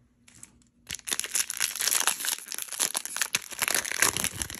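Foil wrapper of a Magic: The Gathering draft booster pack crinkling and crackling in the hands as it is torn open, starting about a second in.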